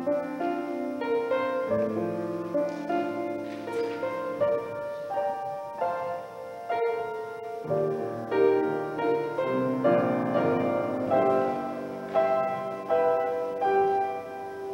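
Solo keyboard music: a melody over held chords, notes changing every half second or so.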